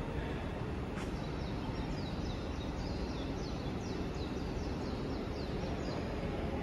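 Steady background noise, with a small bird's rapid run of short, high, falling chirps from about a second in until about six seconds in.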